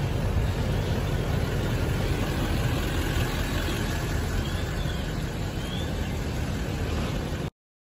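Steady low engine rumble of an FDNY battalion chief's SUV rolling slowly past close by. The sound cuts off suddenly near the end.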